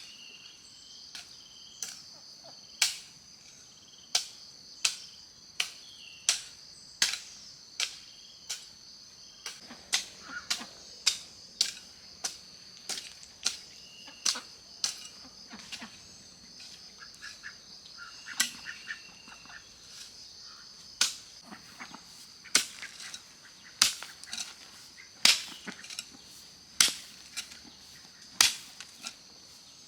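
Repeated sharp chopping strikes, irregular at about one to two a second, over a steady high drone of insects.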